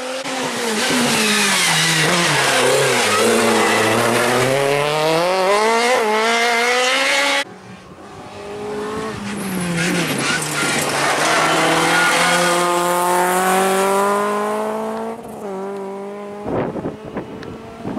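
Rally cars at full throttle through the gears. The first engine's pitch drops and climbs again, then an abrupt cut about seven seconds in brings a second car that revs up and holds a steady high note. Near the end comes a run of sharp cracks.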